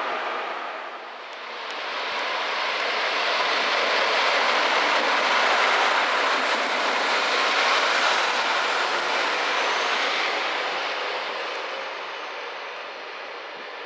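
Bayerische Regiobahn diesel multiple unit pulling out of the station. Its running noise builds as it accelerates past and fades toward the end.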